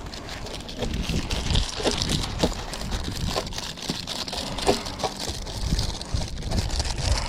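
Wind rumbling on the microphone, with scattered rustles and light knocks of materials being handled on the roof.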